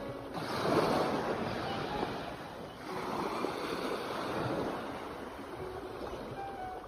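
Sea waves washing, swelling in two surges, about half a second and about three seconds in, with wind on the microphone.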